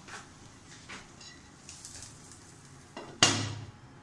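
A few faint taps, then a glass plate set down over a non-stick frying pan with one sharp clink about three seconds in that rings briefly.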